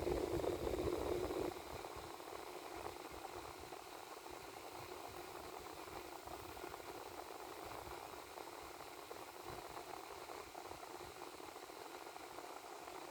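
Cooling fan running with a steady airy whir; about a second and a half in it drops noticeably in level and then runs on evenly.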